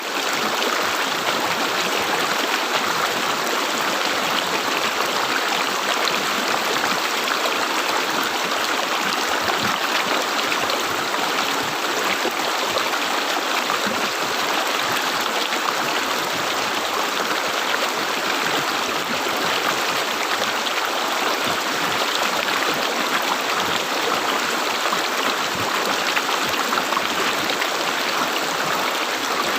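River water gurgling and rushing over rocks, a steady, even flow.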